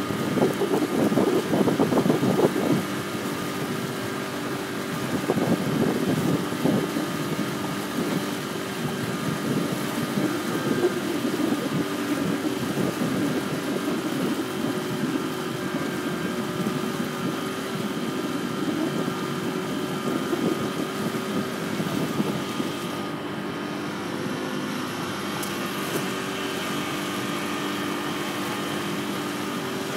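A boat engine running steadily with a constant hum, with uneven surges of rushing noise over it, strongest in the first few seconds.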